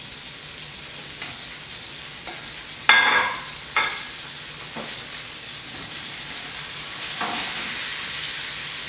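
Sockeye salmon fillet and squash sizzling in olive oil in frying pans: a steady hiss that grows a little louder near the end. A sharp clank with a brief ring about three seconds in, and a few lighter knocks, come from utensils being set down and used.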